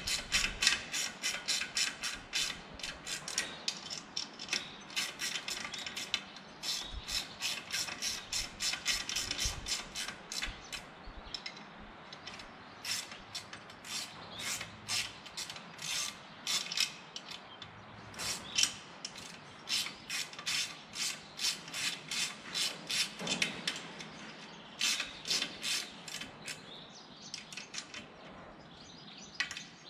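Ratchet wrench clicking in runs of quick clicks with short pauses as the 13 mm hub bolts of a Warp Drive propeller are taken up to snug, not fully tight, so the blades can still be turned for setting the pitch.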